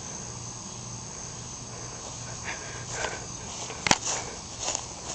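Crickets chirring steadily in the background; from about halfway in, footsteps swishing through grass, with one sharp click near the four-second mark.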